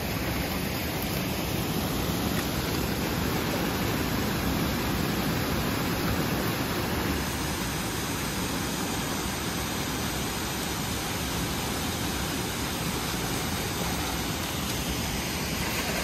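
Steady rushing of a waterfall and a shallow creek, an even hiss that does not change.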